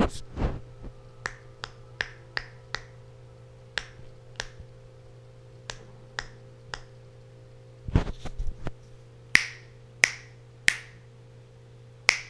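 Fingers snapping, one sharp snap at a time at uneven intervals, the snaps growing louder in the second half, with a low thud about eight seconds in.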